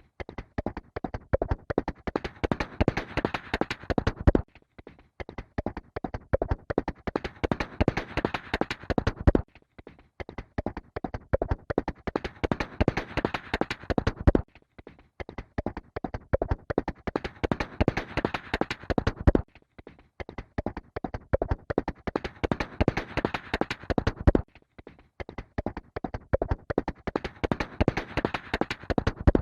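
Horse galloping: rapid, uneven hoof beats in passes of about five seconds, each broken by a short gap before the next pass begins.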